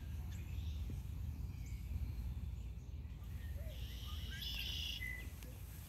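Outdoor pond ambience: a steady low rumble with faint, scattered bird chirps, and a brief burst of birdsong about four and a half seconds in.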